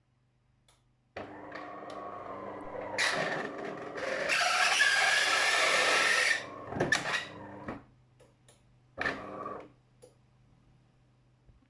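De'Longhi ESAM 2200 bean-to-cup coffee machine switching on, its internal motor-driven mechanism running with a squeak about a second in. The sound turns louder and noisier for a few seconds in the middle, then ends in a couple of short mechanical bursts. The squeak at switch-on is the fault the owner is showing.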